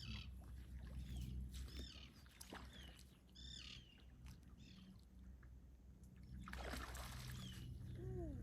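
Small birds chirping in short repeated phrases, about once a second, over a faint low rumble, with a brief rush of noise about two-thirds of the way through.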